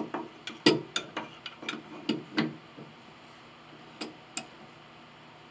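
Metal C-clamp clicking and knocking as it is set over a glued pinblock piece and its screw turned down to clamp the glue-up. A quick run of sharp clicks, the loudest under a second in, dies away after about two and a half seconds, and two more clicks follow about four seconds in.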